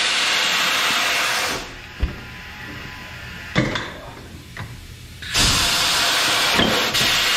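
A loud steady hiss that stops about a second and a half in and starts again about five seconds in. In the quieter stretch between, a few sharp metal clanks come from the parts of a manual tire changer: its bar and the cone clamp on the spindle.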